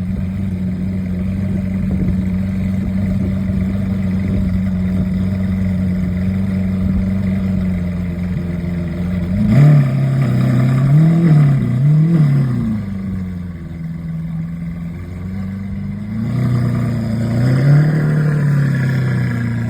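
Lamborghini engine idling steadily, then revved in a few quick blips about halfway through, the pitch rising and falling before settling back to idle, with one more gentler rev near the end.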